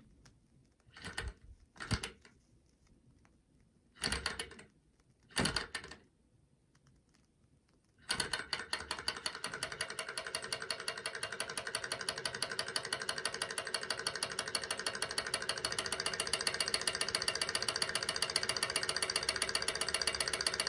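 SunnyTech hot-air Stirling engine, heated by its alcohol burner, starts running about eight seconds in. It sets up a fast, even mechanical clatter that grows steadily louder as it gathers speed. Before that there are four short noises, then near quiet.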